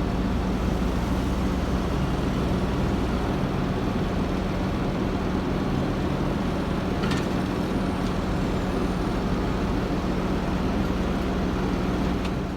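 Fendt Vario tractor's diesel engine running steadily under load while ploughing, with an even low drone.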